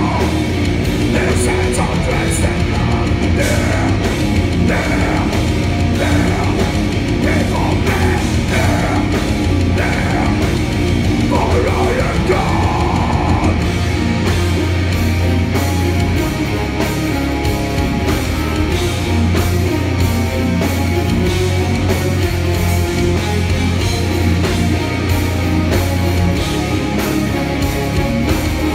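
A symphonic death metal band playing live at full volume: distorted electric guitars, bass and a drum kit in a dense, unbroken wall of sound.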